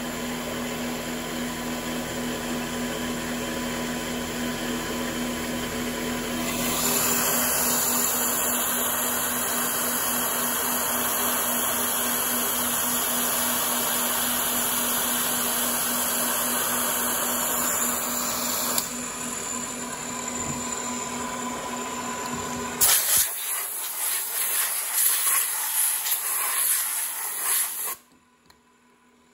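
CNC knee mill's spindle running an end mill around a disc on a light finish contour pass, under a steady hiss of mist coolant spray. The hiss grows louder for a stretch in the middle. About two-thirds through the steady hum stops, leaving a sputtering spray that cuts off shortly before the end.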